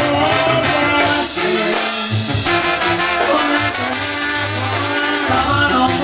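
Banda sinaloense playing live, with trumpets and trombones carrying the melody over a bass line and drum kit.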